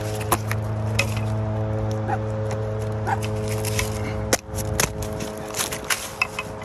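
Sharp clicks and knocks of a metal blade prying and scraping in the bark and wood of a tree trunk, with the loudest knock a little over four seconds in. Under it a steady droning background music runs and cuts off at that point.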